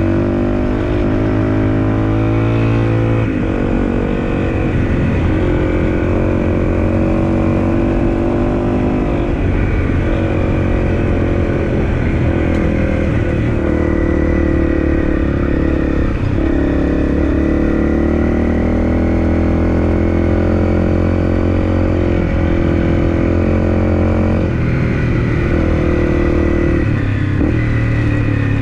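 Honda CRF250L's single-cylinder engine running under way at a fairly steady speed. Its note steps to a new pitch a few times as the throttle or gear changes.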